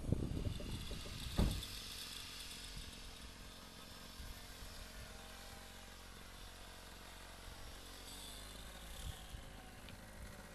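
Wind buffeting the microphone, then a thump about a second and a half in. After that a small engine runs steadily.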